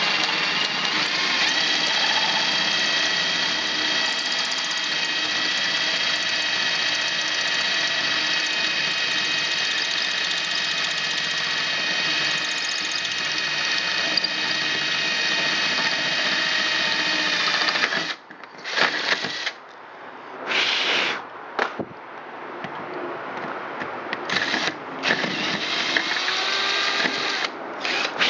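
Electric drill turning a 9/16-inch hole saw as it cuts through a metal door, a steady motor whine for about eighteen seconds. It then stops and is run in several short bursts, its pitch rising and falling as it spins up and down.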